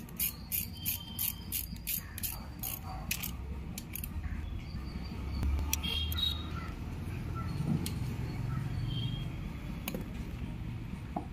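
Ratchet wrench clicking about four times a second as a bolt is turned. The clicks thin out and stop a few seconds in, followed by a few light metal clinks of tools and engine parts.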